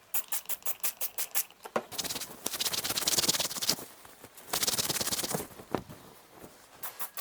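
Duvet fabric being rubbed by hand to work in stain-remover spray: a run of quick scratchy strokes, then two longer spells of rustling friction, and more quick strokes near the end.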